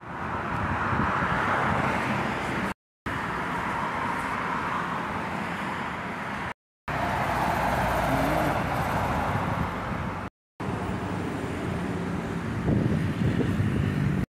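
Road traffic: cars passing on a street, the noise swelling and easing, with a lower engine hum near the end. It breaks off into brief silence three times.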